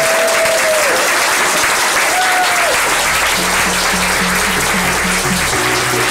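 A room of guests applauding and cheering, with a few drawn-out whoops in the first three seconds. Music with a steady bass beat comes in about halfway through.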